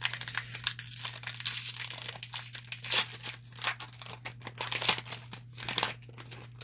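Trading-card pack wrapper crinkling and tearing as a hockey card pack is ripped open and handled, in many irregular crackles, over a steady low electrical hum.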